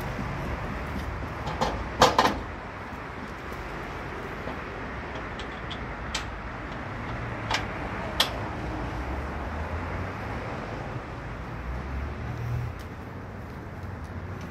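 A few sharp metallic clunks and clicks from a trailer's fittings being handled: a loud cluster of two or three about two seconds in, then single clicks a few seconds later, over a steady low outdoor hum.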